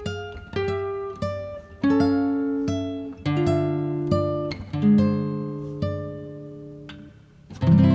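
Background music: plucked acoustic guitar playing a gentle melody, notes and chords ringing and dying away.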